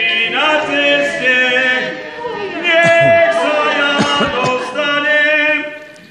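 A group of voices singing unaccompanied in slow phrases of long held notes, a funeral-style song for the mock burial of a double bass. The phrase fades out near the end.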